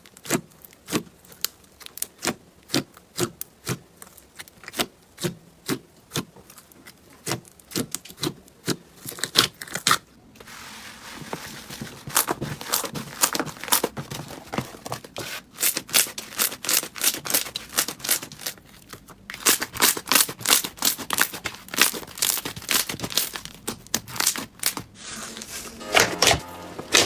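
Slime being squeezed and pressed, making sharp wet pops about twice a second, then denser crackling and rapid clicking in the later clips.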